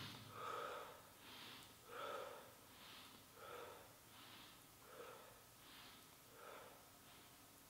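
Faint, even breathing of a man exercising: soft breaths in and out in turn, about one every three-quarters of a second, paced to the opening and closing of the arms.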